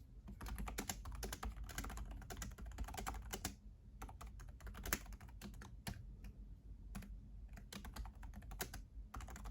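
Typing on a JellyComb Bluetooth keyboard with a clear cover fitted over the keys: a fast, irregular run of soft key clicks with a few short pauses. The cover makes the typing softer.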